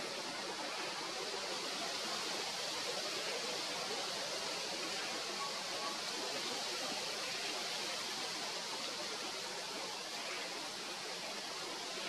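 Steady outdoor background hiss with no distinct bird call.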